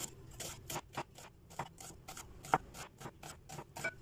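Chef's knife slicing a red onion thinly on a cutting board: a quick run of short taps and crunches, about three to four strokes a second.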